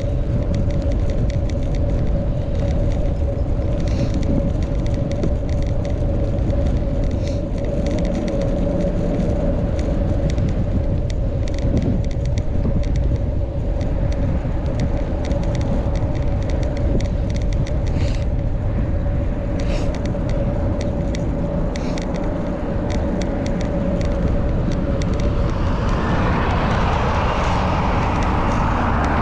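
Steady low rumble of wind and road noise while riding a bicycle along a road, with a steady hum for most of the stretch. Near the end a louder hiss builds, like a motor vehicle coming past on the road.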